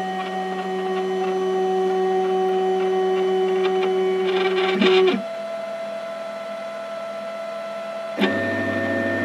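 Stepper motors of a Flashforge Creator X 3D printer homing its axes at the start of a print. A steady electric whine runs as the build platform rises, with a quick rattle of clicks about five seconds in as it reaches its stop. The whine then drops away to a quieter steady tone, and a click a second before the end brings in a louder mix of motor tones as the extruder carriage moves.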